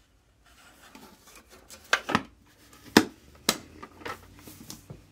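Hard plastic clicks and knocks from a vintage sewing case's plastic thread-spool tray and spools being handled: a handful of sharp clicks, loudest in the middle, with light rattling and rustling between.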